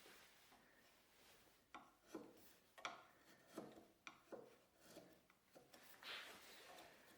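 Faint, repeated rubbing strokes of a hand tool on wood, about one stroke every two-thirds of a second, each starting with a light click.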